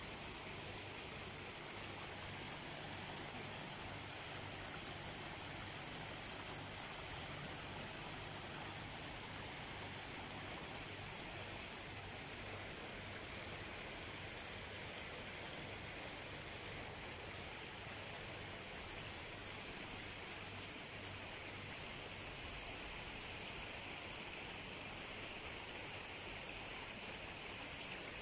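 Water running steadily through the channel of a garden miniature landscape, an even rushing sound with a faint low hum underneath.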